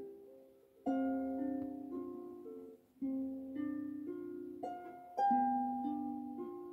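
Harp playing a slow piece: a plucked chord about every two seconds, each ringing and fading, with single notes plucked in between.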